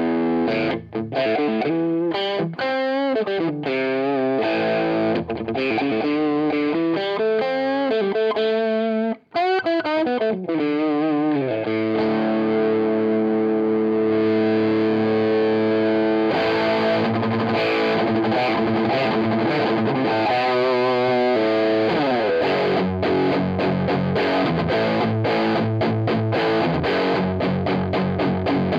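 Electric guitar played through an MXR DD25 Dookie Drive overdrive pedal with its clean/effect blend turned fully to the effect, giving a distorted tone. It plays single-note lines, then a chord held for a few seconds about twelve seconds in, then rhythmic strummed chords.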